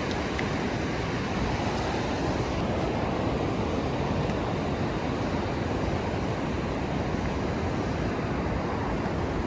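Steady rush of ocean surf breaking along the shore, even in level throughout.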